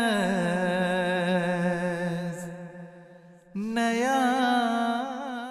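A man's voice singing an Urdu nazm: one long held note that slides down in pitch and fades, a short break about three seconds in, then another long held note with vibrato.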